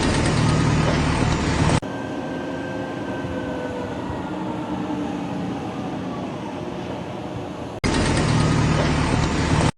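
Steady mechanical noise from a vehicle or heavy machine, with a low hum. It changes character about two seconds in and changes back near the end, and the middle part carries faint falling whines.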